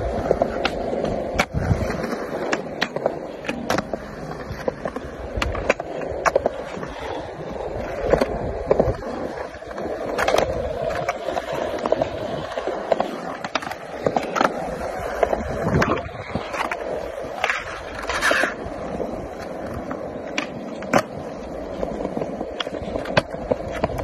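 Skateboard wheels rolling steadily on smooth concrete, broken by many sharp clacks of the board, one every second or so, as the skater pops and lands tricks.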